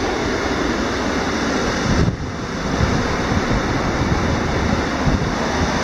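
Water rushing steadily over a stepped block-stone river weir, with wind buffeting the microphone.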